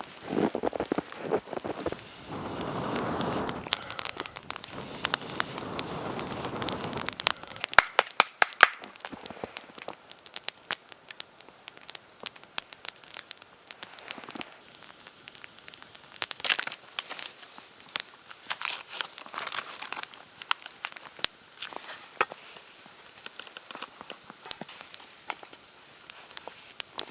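Campfire crackling, the burning wood giving off sharp, irregular pops, with a stretch of denser rustling between about two and seven seconds in.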